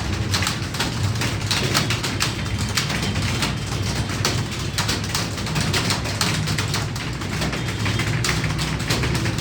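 Many computer keyboards being typed on at once: a dense, continuous clatter of key clicks over a low steady hum.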